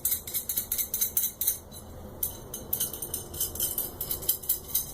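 An M10 nut being spun by hand along a threaded steel rod: rapid, light metallic clicking and rattling of the nut on the threads, with a brief pause about two seconds in.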